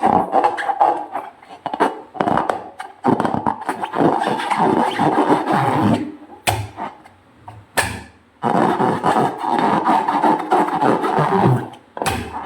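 Rubber balloons making long stretches of rough, buzzing, squeaky rubber noise, broken by a few short sharp sounds about halfway through and near the end.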